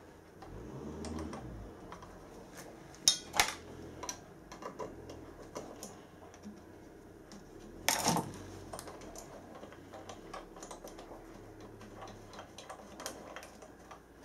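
Small metal parts, a pipe fitting and washers on a copper pipe, clicking and tapping as they are handled and fitted. There are scattered light clicks, with louder knocks about three seconds in and again about eight seconds in.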